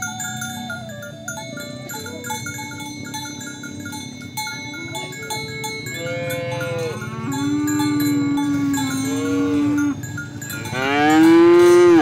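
Cattle mooing over light background music with bell-like mallet notes. A few shorter moos start about halfway through, then comes a long, low, steady moo, and near the end a loud moo that rises and falls, the loudest sound.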